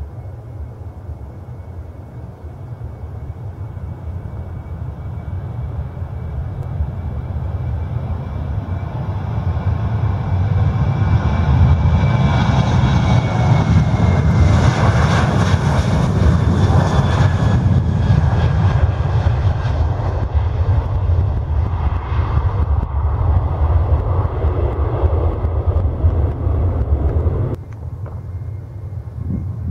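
Boeing 737-800 jet engines running at high power as the airliner rolls along the runway. The roar and deep rumble build, peak about halfway with a whine that falls slightly in pitch as it passes, then ease off. The sound drops suddenly shortly before the end.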